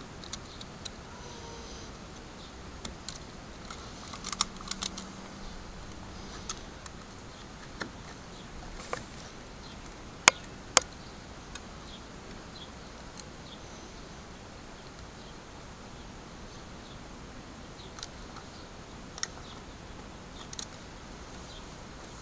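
Hobby knife blade cutting into a wooden walking stick and lifting off small chips: scattered short sharp clicks and ticks, a small cluster about four to five seconds in and the two loudest close together near ten seconds.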